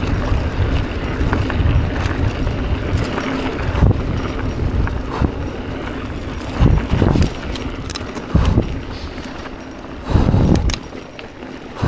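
Mountain bike descending a dirt singletrack: tyres crunching over the dirt with the chain and frame rattling, and wind buffeting the camera mic. Several louder low thumps or gusts stand out, about four seconds in and again later.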